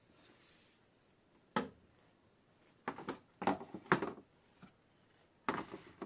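Bicycle suspension fork parts and a measuring cup are handled and set down on a workbench and into a metal tray, making sharp knocks and clatter: one knock about a second and a half in, the loudest cluster of knocks from about three to four seconds, and another clatter near the end.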